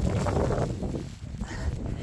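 Strong gusting wind buffeting the microphone, with rustling in the first half second or so.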